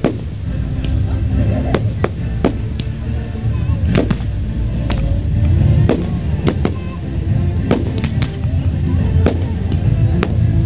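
Aerial fireworks shells bursting in rapid, irregular succession, nearly two sharp bangs a second, over a continuous low rumble.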